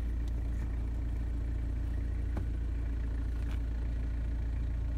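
Vehicle engine running steadily with a low drone, heard from inside the vehicle as it moves slowly, with a few light knocks.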